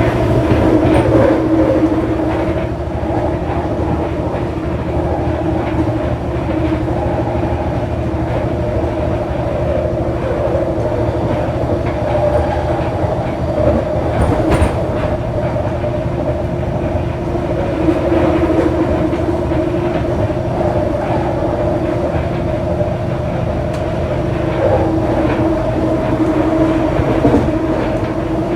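Scarborough RT light-metro train under way, heard from inside the car: steady running noise of wheels on the track with a steady hum from the linear induction motors, and a sharp rail click about halfway through.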